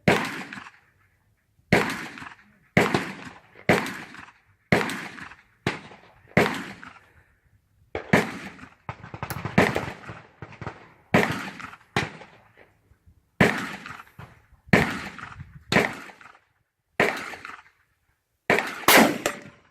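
A long string of gunshots, about one every second, each sharp report followed by a short fading echo.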